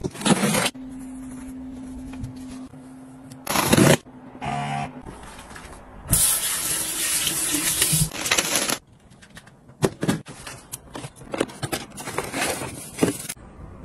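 A few short hissing bursts, then water running from a bathroom sink tap for a couple of seconds, then a run of crinkling and clicking as a cardboard box and its plastic packing are opened.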